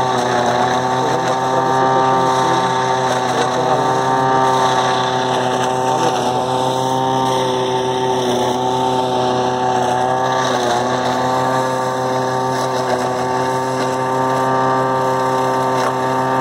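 Tractor engine driving a forage harvester (silage chopper) at working speed, chopping corn and blowing it out of the spout: a loud, steady machine noise with a steady hum.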